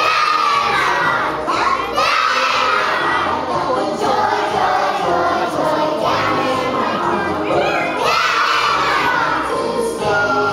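A group of young children singing loudly together, close to shouting the song.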